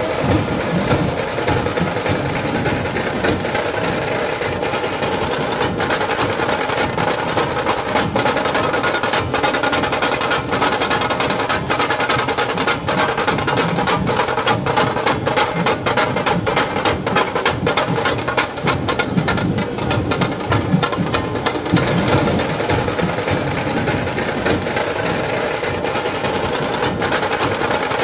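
Festival procession drumming for a Ganesh idol's arrival: loud, fast, unbroken drum strokes with a crisp snare-like edge.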